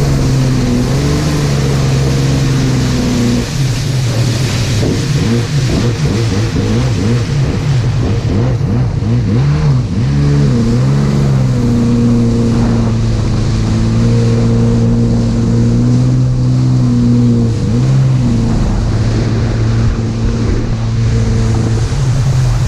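Jet ski engine running under way, its pitch dipping and recovering a few times, with a steady hiss of wind and water behind it.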